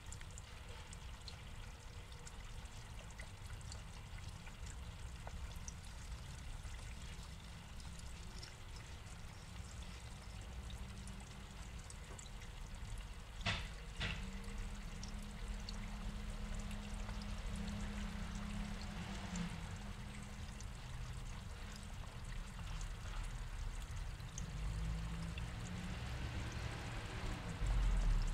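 Water steadily pouring and trickling into a small pond. Two sharp clicks come about halfway through, followed by a low steady hum for several seconds.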